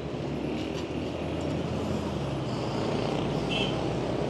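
City street traffic: motor vehicle engines running and passing on a busy road as a steady low rumble.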